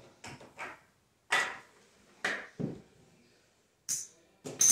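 Casino chips clacking together as they are picked up and stacked, about eight separate sharp clicks in small clusters, the last few with a brief high ring.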